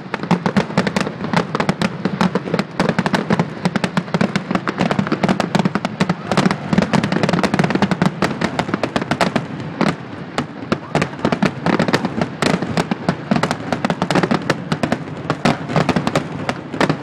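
Fireworks finale: a rapid, unbroken barrage of aerial shell bursts, many bangs a second overlapping with crackle.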